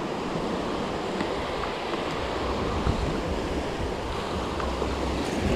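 Sea waves washing in with wind buffeting the microphone, the low rumble of the wind getting stronger about halfway through.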